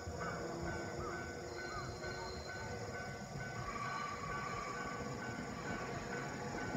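Level-crossing warning bell ringing steadily, about two strikes a second, as a Nankai 2000 series electric train approaches. A steady high tone comes in about four seconds in.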